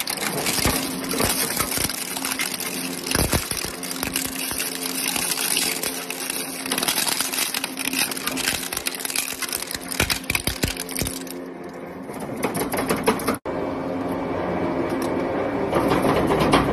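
Twin-shaft shredder's toothed rotors chewing through hard plastic toys: dense cracking and snapping over a steady drive hum. About thirteen seconds in the sound cuts out for an instant and a duller, steadier machine noise follows.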